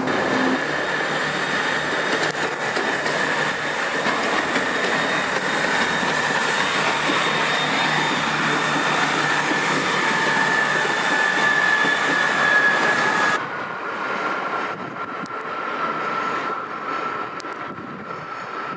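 Diesel train moving slowly through the station, its wheels squealing on the rails in a steady high tone. About two-thirds of the way through, the sound drops suddenly and a lower, quieter squeal carries on.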